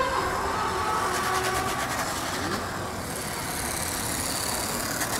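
Steady road traffic noise, a rumble of passing vehicles.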